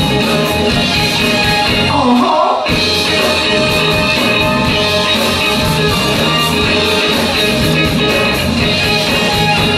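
Live soul band playing an up-tempo groove on electric guitars, drum kit, congas and keyboard, with a steady beat. About two seconds in, the bass and drums drop out for a moment under a short sliding high line, then the groove comes back in.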